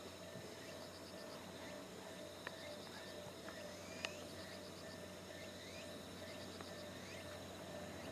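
Faint outdoor insect chorus: chirps in short rapid pulse trains, repeating every few seconds, with short rising chirps about once a second. Two sharp clicks, the louder about four seconds in.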